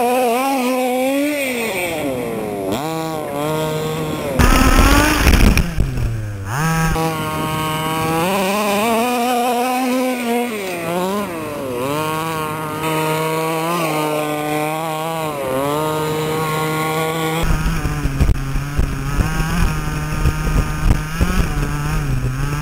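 HPI Baja 5B SS RC buggy's small two-stroke petrol engine revving up and down with the throttle, its pitch rising and falling again and again. About four and a half seconds in it turns louder and harsher, with the pitch dropping sharply, and in the last few seconds the running gets rougher and more uneven.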